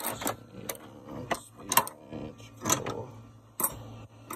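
Steel wrenches clinking against each other as they are handled and shifted in a toolbox drawer: a string of separate sharp metal clinks, a few of them ringing briefly.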